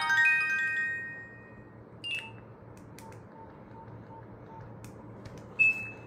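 Nokia 1280 ringtone: a quick run of bright electronic notes that fades out in the first second. Then short keypad beeps with clicks, once about two seconds in and once, louder, near the end, as the phone's buttons are pressed.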